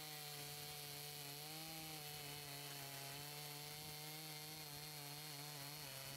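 Makita EA5000P 50cc two-stroke chainsaw running under load as its Zentop full-chisel chain cuts down through a stack of 4x4 timbers. The engine holds a steady pitch, quiet in the mix, and dips briefly near the end.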